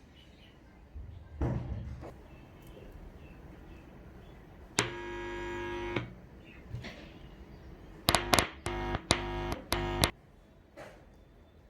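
Electronic beeps: one buzzy tone lasting about a second near the middle, then a quick run of about five short buzzy beeps, with a few soft knocks about a second in.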